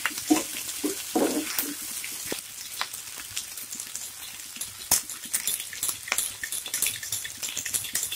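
Beef, onion and capsicum sizzling in soy sauce and ketchup in a frying pan: a steady hiss with many small pops and crackles. A wooden spatula stirs through the pan briefly at the start.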